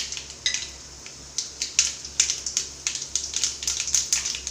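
Mustard seeds popping and spluttering in hot oil: irregular sharp crackles over a light sizzle.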